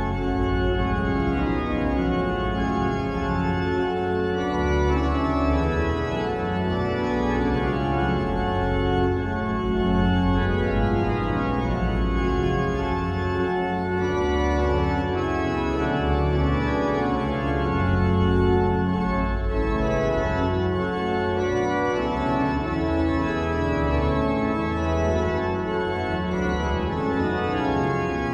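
Organ music: full sustained chords over deep bass notes, playing steadily.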